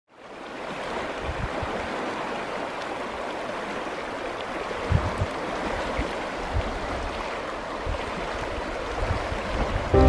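Steady rush of the muddy, monsoon-swollen San Pedro River, heard from an inflatable kayak at the bank; the rush fades in at the start, with a few low thumps along the way.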